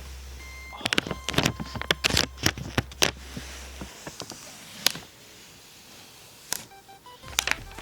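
Peeled-off protective plastic film crinkled right against the microphone: a dense run of sharp crackles over the first few seconds, then a few scattered ones.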